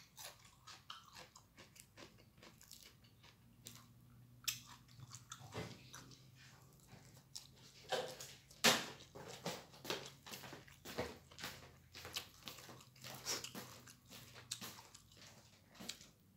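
A man chewing and biting into a hand-eaten meal of fried catfish, rice and raw cucumber. Irregular wet mouth clicks and crunches are heard all through, the loudest about eight and a half seconds in.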